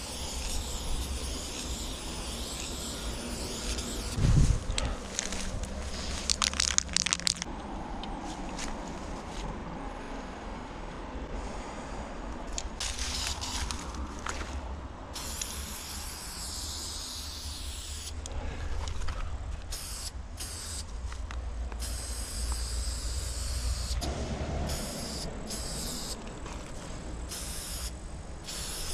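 Aerosol spray paint cans hissing in repeated on-off bursts as paint is sprayed onto a brick wall. A thump about four seconds in and a quick run of sharp clicks a few seconds later.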